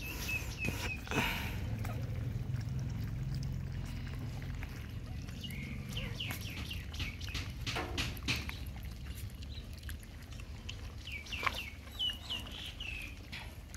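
A litter of puppies lapping milk from a plate, with scattered wet licking clicks. Short, high, falling peeping calls come in three quick runs: near the start, about six seconds in, and near the end.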